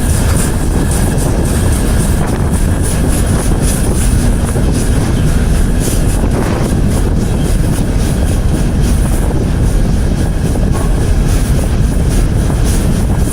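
Steady rumble of a moving freight train, heard from on board by someone riding it.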